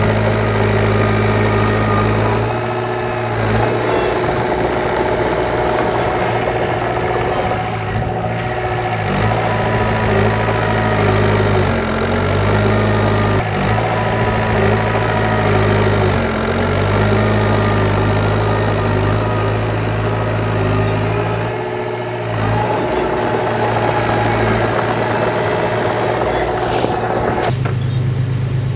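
Heavy construction machine's diesel engine running steadily, with brief dips and shifts in its note every few seconds and a change to a lower, deeper note near the end.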